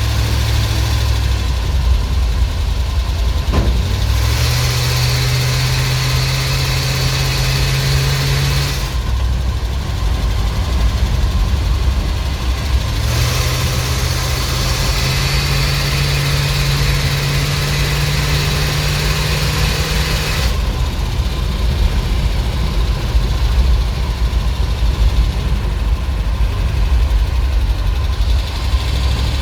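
ZIL truck engine running, its speed going up and down in steps: it rises a few seconds in, drops back, climbs slowly for several seconds and then falls again.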